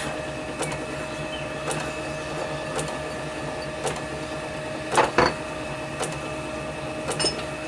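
Lathe drive plate being unscrewed from the spindle nose and taken off, with a metallic clunk about five seconds in. Throughout there is a steady machine hum with light clicks about once a second.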